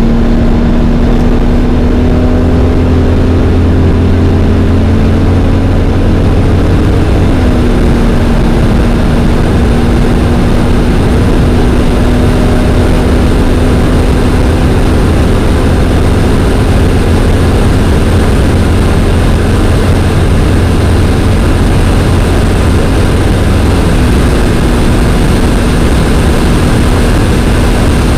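In-cabin sound of the Brabus Rocket 900's twin-turbo V12 at full throttle near top speed, with heavy wind and road noise. The automatic gearbox upshifts into sixth about 7 seconds in and into seventh about 24 seconds in; the engine note drops at each shift, then climbs slowly as the car keeps accelerating.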